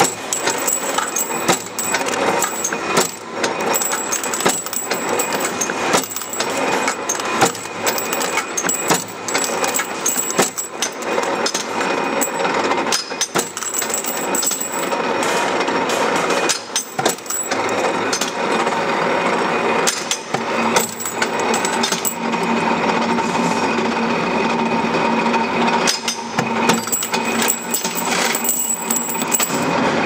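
Factory machine cutting steel rods into short pieces: a continuous mechanical clatter full of rapid, irregular metallic clicks and knocks over a steady machine whine.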